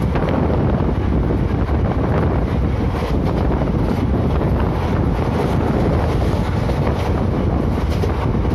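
Wind buffeting a phone's microphone held out of a moving passenger train, over the steady low rumble of the coach running on the track, with a few faint clicks.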